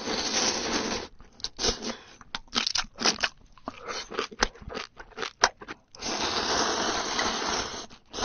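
Close-miked eating: a long slurp of noodles, then several seconds of wet chewing with short sharp smacks, then another long slurp about six seconds in.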